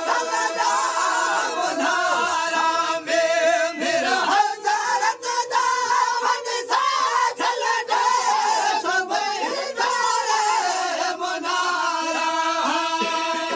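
Men's voices chanting a Sindhi molood together, unaccompanied: lead voices rising and falling over a steady held drone from the rest of the group. Several sharp knocks cut through between about three and six seconds in.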